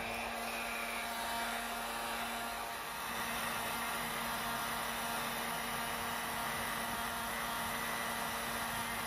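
Electric heat gun blowing steadily, a rush of hot air over the steady hum of its fan motor. It is aimed at wood veneer to heat it without water.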